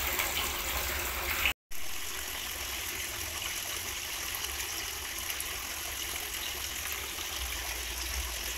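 Steady background hiss with a low rumble underneath and no distinct events. It cuts out to silence for an instant about a second and a half in, then carries on unchanged.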